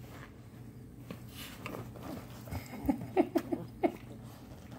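A puppy at rough play giving a quick run of about five short, sharp yips, a little under a second in all, about three seconds in, with faint rustling of paws on bedding before it.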